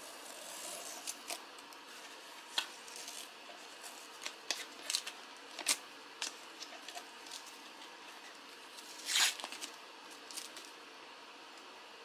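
Green masking tape being peeled off the rim of a wooden tray over cured resin: scattered crisp crackles and ticks as it lifts away, with one louder short rip about nine seconds in.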